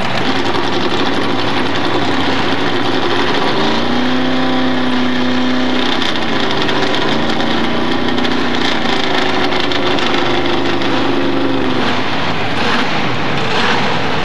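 Vehicle engines running loudly, with one engine holding a steady pitch from about four seconds in to about twelve.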